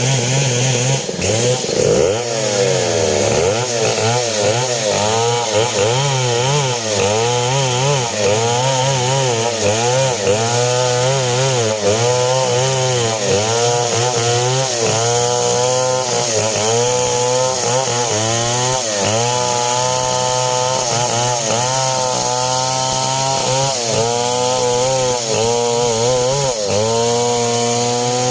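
STIHL 070 two-stroke chainsaw cutting through coconut timber, its engine note rising and falling again and again as it works under load.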